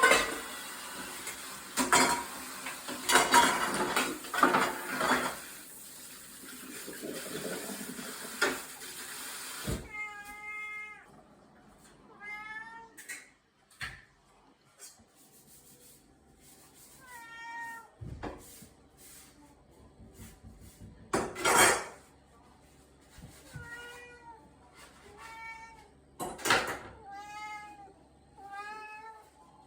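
A domestic cat meowing again and again, about seven short meows in the second half. Kitchen clatter of dishes and a running tap fill the first third, with sharp knocks between the meows, the loudest a little past the middle.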